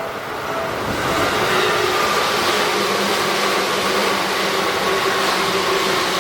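A Seibu 10000 series limited-express electric train runs through the level crossing. Its noise swells about a second in and then holds as a steady, loud rush. Over the first second the crossing's warning bell rings in repeated dings, then is drowned out by the train.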